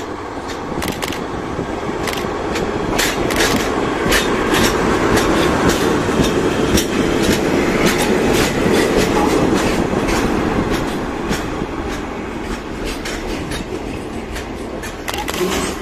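Diesel-hauled container freight train rolling past: a steady rumble of flatcar wheels on the rails, with irregular clacks as the wheels cross rail joints. It is loudest in the middle as the wagons go by, then eases off.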